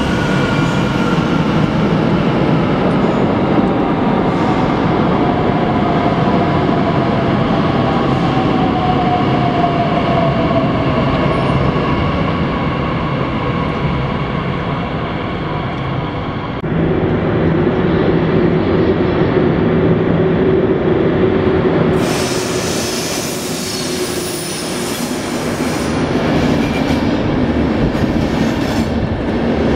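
Electric regional multiple unit running along a station platform, its motor whine slowly falling in pitch as it slows. After a change of scene about two-thirds of the way in, a long train of passenger coaches rolls along the platform, and high-pitched wheel and brake squeal sets in.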